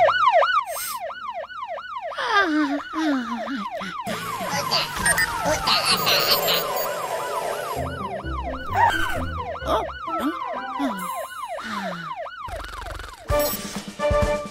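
Cartoon siren sound effect wailing in quick rising-and-falling cycles, about three a second, in two spells, with background music and a few falling slide-like glides between them.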